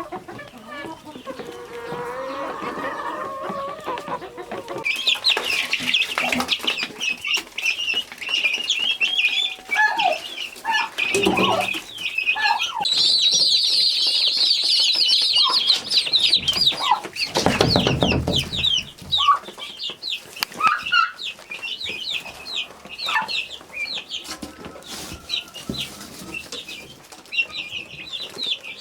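Chickens clucking, with a dense run of rapid, high chirping from about five seconds in. There is a louder low call or flutter about two-thirds of the way through.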